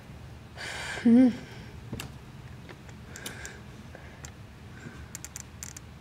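A breath and then a short wavering vocal sound from a voice about a second in, followed by a few faint scattered clicks.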